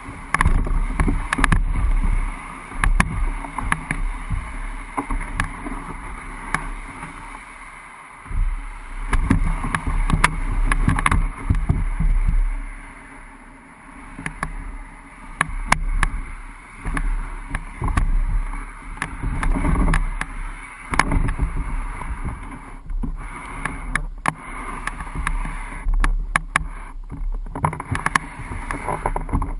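Old Town Pack Angler canoe hull being dragged over a grassy, muddy bank, scraping and rumbling in surges with each pull and stopping briefly between them. Sharp clicks and knocks of twigs and grit come against the hull throughout.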